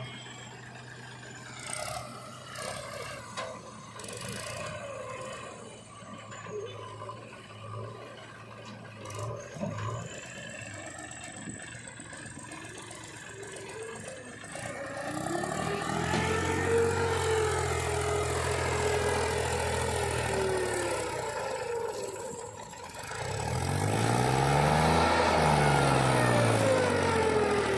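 Heavy machinery engine idling steadily, then revved up and held for several seconds about halfway through, and revved up and back down again near the end.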